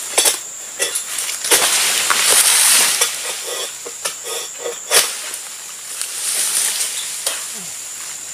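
Egrek (a sickle blade on a long pole) hacking and scraping at an oil palm's frond base: repeated sharp cutting knocks mixed with rustling and scraping of palm fronds. The loudest knock comes about five seconds in.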